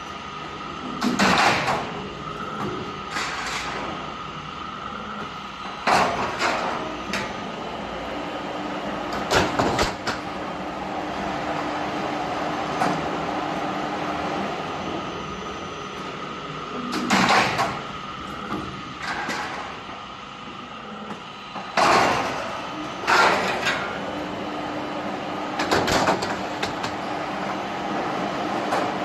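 Steel roofing sheet roll forming machine running with a steady hum, interrupted by about nine short loud noisy bursts at irregular intervals of a few seconds.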